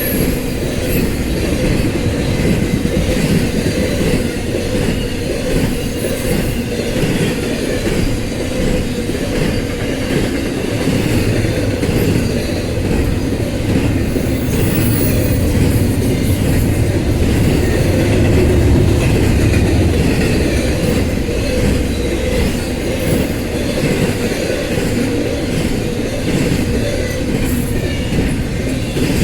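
Freight train's intermodal cars rolling past: a steady rumble of steel wheels on rail with clickety-clack over the rail joints, and a brief high wheel squeal at the start and again about halfway through.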